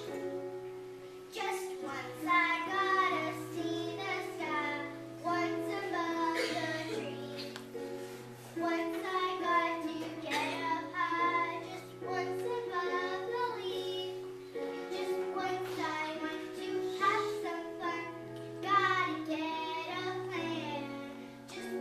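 Children singing a song with instrumental accompaniment beneath the voices.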